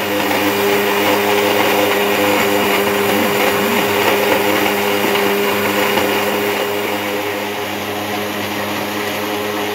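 Electric countertop blender running steadily, its motor humming and the blades churning peeled lemons in hot water.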